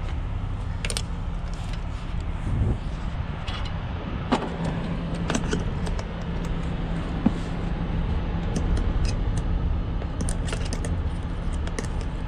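Truck engine idling with a steady low hum, under scattered metallic clicks and clinks as a tow light bar is handled and set in place.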